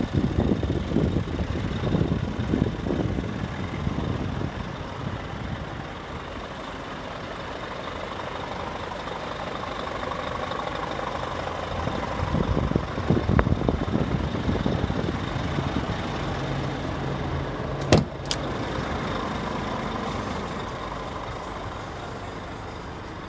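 Scania G490 truck's diesel engine idling steadily, with rough low rumbling on the microphone in the first few seconds. A single sharp clunk comes about three-quarters of the way through.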